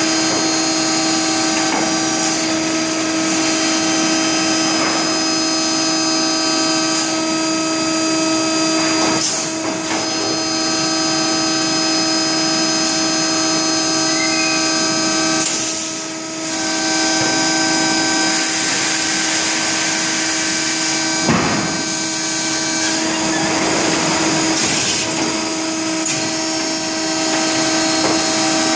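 Hydraulic power unit of a press running: a steady machine hum with a strong steady tone, and a couple of stretches of louder hiss past the middle.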